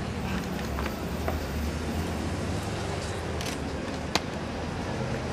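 Street ambience: a steady low rumble of passing traffic, with a single sharp click about four seconds in.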